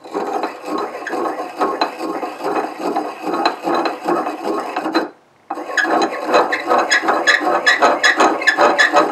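Hand-cranked piston ring filer filing the end of an LQ9 piston ring to widen its end gap for boost, a scraping repeated several times a second. It stops briefly about five seconds in, then goes on.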